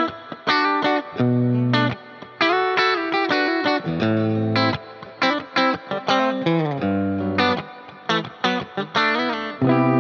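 PRS SE Custom 24-08 electric guitar playing a phrase of quick single notes, broken by a few longer held low notes.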